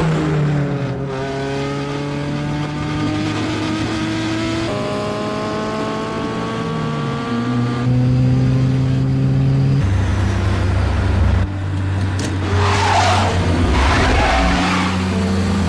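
Several tuned sport-compact cars running hard at highway speed, their engine notes climbing slowly and stepping in pitch a few times. Near the end a loud rushing of wind and road noise rises over the engines.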